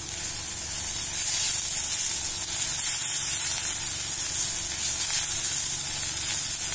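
Chopped fenugreek (methi) leaves sizzling steadily in hot oil in a steel kadai as they are stirred, sautéed briefly to drive off their moisture.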